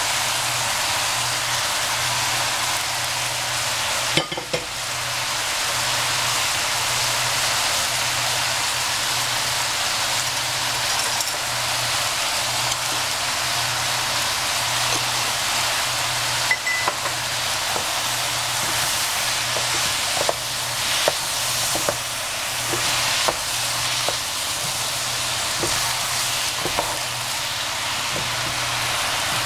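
Food sizzling steadily in hot oil in a frying pan, with occasional sharp clicks of a utensil stirring against the pan, more frequent in the second half, over a steady low hum.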